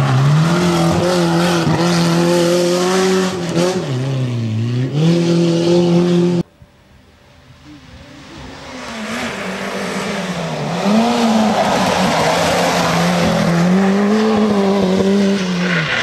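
Peugeot 205 rally cars driven hard on a tarmac stage. The first passes close, its engine note dropping as it lifts off and changes down for a bend, then revving up again. After a sudden cut, the next car is heard coming from far off, its engine growing louder and rising and falling through the gears as it nears.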